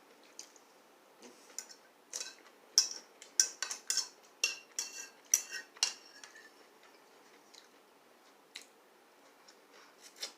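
Cutlery clinking against dishes: a quick run of light clicks and taps between about two and six seconds in, with a few single clicks before and after.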